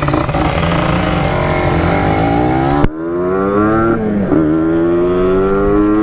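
Two-stroke Kawasaki Ninja RR engine pulling away and accelerating hard, rising in pitch through the gears. The note cuts off abruptly for a gear change just before three seconds in, dips again for another shift about a second later, then climbs steadily.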